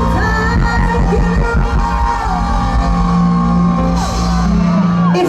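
Live band music with long sustained chords over a steady bass, and singing over them. The deepest bass drops out near the end.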